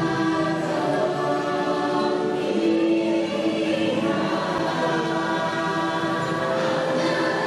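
Choral music from the ride's soundtrack: a choir of voices holding long, layered chant-like tones that shift slowly.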